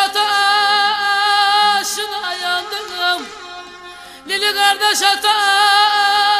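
Background music: a slow melody of long, held, wavering notes in two phrases, dipping briefly about three seconds in before the second phrase begins.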